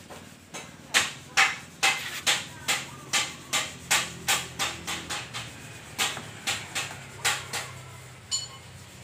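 Repeated hammer blows on the truck cab's sheet metal, a steady run of about two to three sharp strikes a second that stops near the end.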